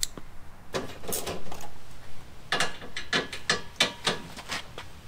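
Socket ratchet wrench clicking in two runs, about a second in and again from about two and a half seconds in, while loosening the flange nuts that hold the front bumper cover.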